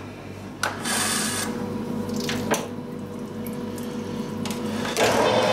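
Metal lathe running while a drill bores into the spinning workpiece under water coolant: a steady motor hum with splashing water, a short burst of spray hiss about a second in, and a couple of sharp clicks. Music begins near the end.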